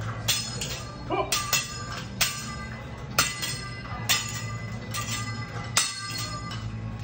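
Metal spatula striking and scraping a steel teppanyaki griddle: sharp ringing clanks, about one a second, irregular. A steady low hum runs underneath.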